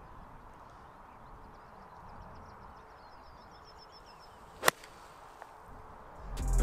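Golf iron striking the ball off fairway turf: one sharp crack about two-thirds of the way through, over a quiet outdoor background. Music starts swelling in at the very end.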